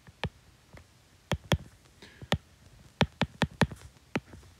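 About ten sharp clicks at an uneven pace, with a quick run of four a little after three seconds in.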